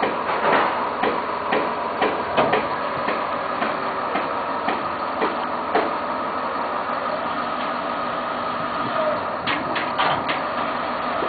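1990 GMC TC7 boom truck running: a steady mechanical whine with irregular clicks and knocks over it, a quick cluster of knocks near the end.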